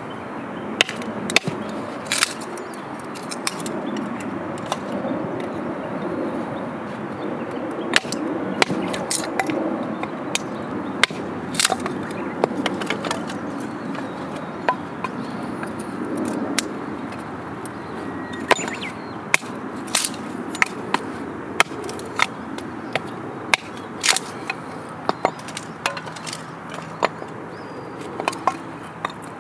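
Wood campfire crackling, with irregular sharp pops and snaps over a steady low rush.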